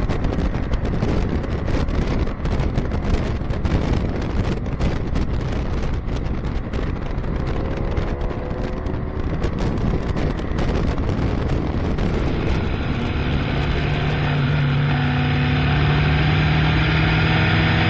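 Wind buffeting the microphone over a motorcycle engine running at road speed. Partway through, the engine note rises as the bike accelerates. In the last few seconds the wind noise eases and a steady engine drone comes through more clearly.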